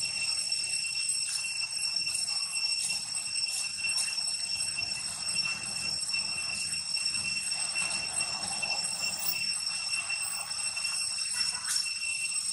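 Cicadas droning in one steady, high-pitched tone that holds unbroken throughout.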